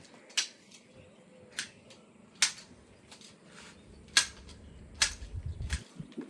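Garden shears snipping ornamental shrub branches, sharp clicks about once a second at an uneven pace.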